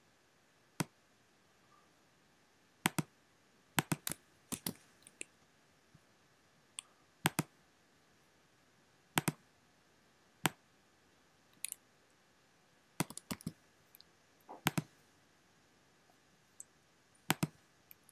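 Scattered clicks of a computer mouse and keyboard: single clicks, quick pairs and short clusters, with quiet gaps of a second or more between them.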